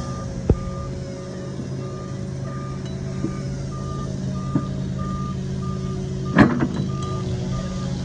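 Caterpillar 308 mini excavator's diesel engine running with a steady, evenly repeating back-up alarm beep over it. A light knock about half a second in, and a sharp ringing steel clank about six and a half seconds in as the quick coupler meets the bucket's pins.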